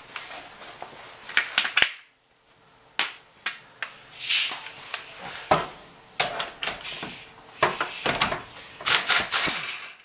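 Clinks and clanks of hand tools on metal as a 19 mm socket and wrench are fitted to the castle nut of a car's outer tie rod end, ending in a quick run of sharp metallic clicks.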